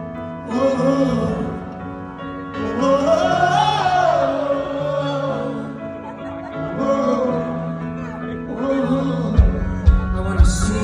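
A man singing a slow pop ballad over sustained held chords. About nine seconds in, a heavy bass line and beat come in.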